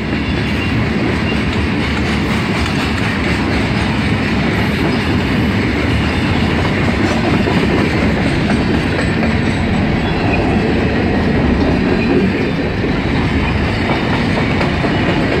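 Freight cars of a passing freight train rolling by at close range: a steady, loud sound of steel wheels running on the rails.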